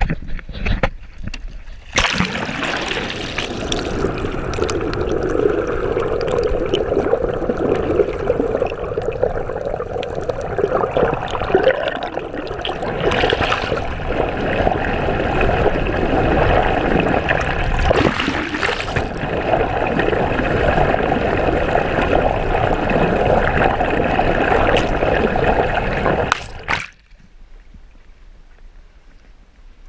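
Water rushing and splashing steadily. It starts suddenly about two seconds in and cuts off abruptly near the end, leaving a faint hiss.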